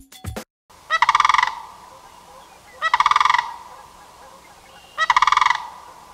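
Sandhill crane calling: three rolling, rattling calls, each under a second long and about two seconds apart.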